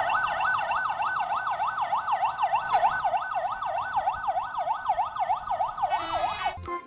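Electronic police-siren sound from a toy traffic police car: a fast yelp sweeping up and down about four times a second, cutting off near the end.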